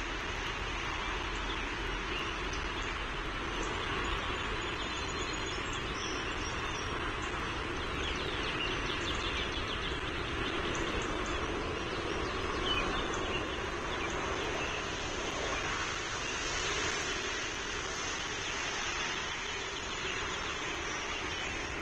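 Outdoor ambience: a steady rushing noise, with faint small-bird chirps now and then.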